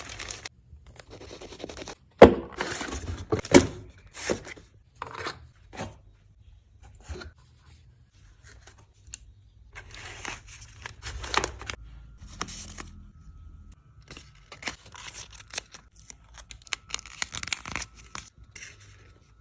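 Packaging being torn open and handled: a series of irregular rips and rustles, the loudest tears about two and three and a half seconds in.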